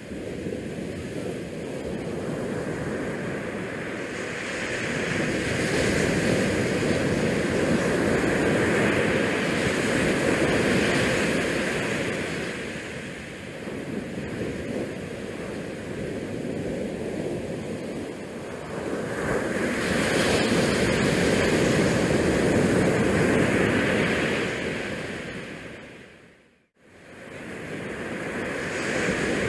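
Outdoor wind rushing over a GoPro's microphone, swelling and easing in slow gusts lasting several seconds. The sound cuts out sharply for a moment near the end.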